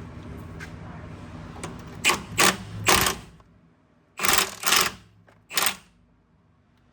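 A tool working on the nuts of an anti-roll bar drop link: six short bursts of mechanical noise in two groups of three, over a low hum that dies away about halfway through.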